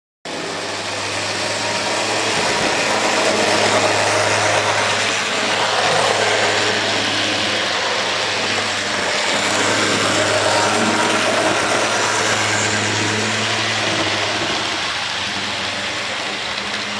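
HO-scale model freight train rolling past on the track: a steady rumble of metal wheels on the rails with a steady low hum underneath.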